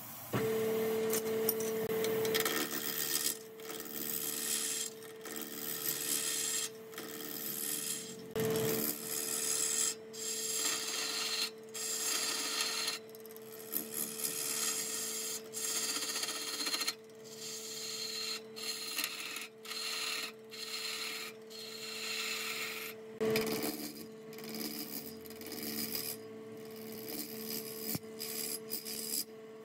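Wood lathe running with a steady hum while a hand-held turning tool cuts a spinning square wooden blank round, giving a harsh scraping and rasping in passes of a second or two with short breaks between them.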